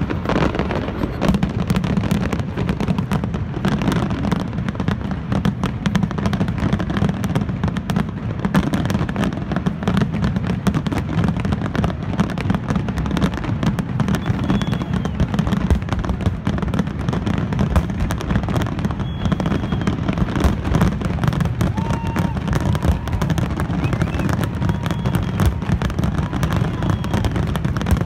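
Fireworks display heard from the crowd: aerial shells bursting one after another in a dense, continuous run of booms and crackle over a steady low rumble.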